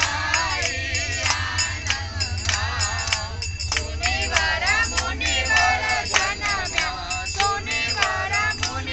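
A group sings a Hindu devotional bhajan together, clapping their hands in a steady rhythm to the beat. The moving train rumbles low and steady underneath.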